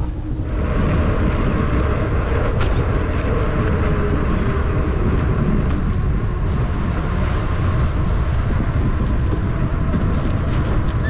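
Steady rushing wind and tyre noise from a mountain bike ride at speed, picked up by the rider's camera; it jumps up about half a second in and then holds steady.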